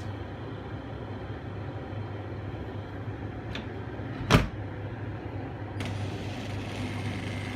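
Dishwasher running with a steady low hum, a single thump a little over four seconds in, and a faint steady tone coming in near the end.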